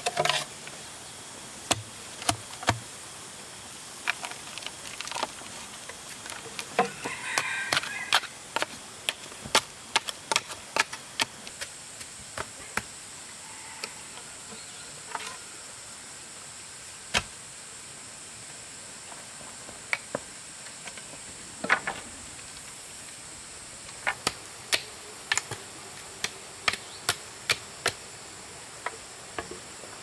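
Tool striking wood in irregular runs of sharp knocks with pauses between, typical of chopping or hammering timber during construction. A steady high hiss runs underneath.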